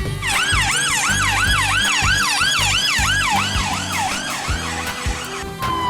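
Electronic police-car siren yelping, its pitch dipping and rising about three times a second, over background music with a steady beat. Near the end it gives way to a single slowly falling tone.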